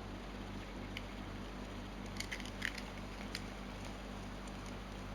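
A handheld coax cable stripper being worked on RG59-size SDI cable: a few small sharp clicks and snips, over a steady low electrical hum.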